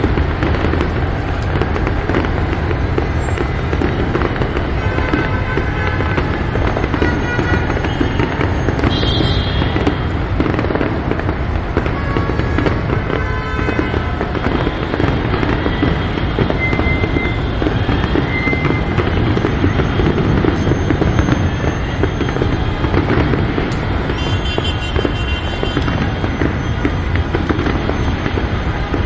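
Fireworks crackling and popping in a dense, continuous barrage, with short high tones now and then.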